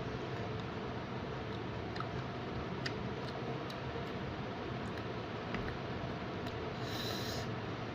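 Scattered soft clicks and wet mouth sounds of a person eating, over a steady background hiss, with a brief rustling hiss about seven seconds in.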